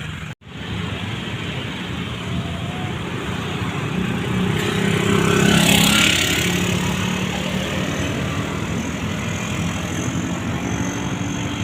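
Bus engine running, rising to its loudest with a rush of hiss about halfway through as it comes close, then settling to a steady run; a brief dropout cuts the sound just after the start.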